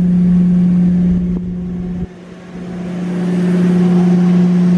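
Airliner jet engine running, heard from a window seat in the cabin as a steady, loud hum. About two seconds in it dips sharply, then builds back up over a couple of seconds.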